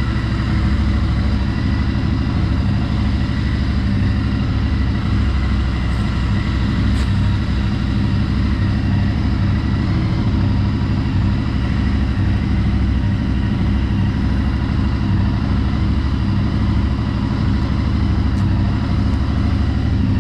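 Royal Enfield Interceptor 650's parallel-twin engine idling steadily in an underground parking garage.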